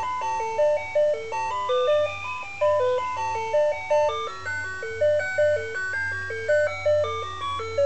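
Alarm clock playing its electronic melody tune, a simple jingle of clean, evenly stepped beeping notes repeating in a steady rhythm.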